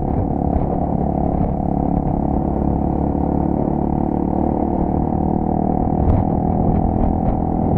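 Honda Tornado 250's single-cylinder four-stroke engine running at steady revs, with a buzzy, distorted tone.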